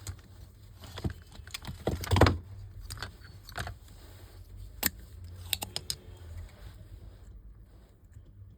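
Scattered small clicks, taps and light clatter of tools being handled while solder paste is applied to the USB port pins of a printer circuit board, the loudest cluster about two seconds in, over a faint low hum.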